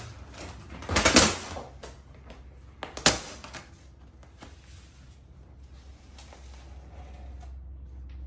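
Handling noises from vinyl-wrapping a car roof: two short bursts of hiss about a second in, a sharp click a little before three seconds, then scattered small clicks over a steady low hum.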